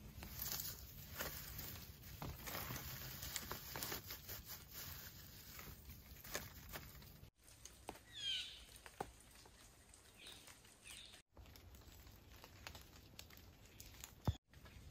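Dry shredded bark crackling and rustling as hands rub and pull it apart to make a tinder bundle. After that a bird gives a few short chirps, and then the forest is quieter, with scattered light ticks and a sharp tap near the end.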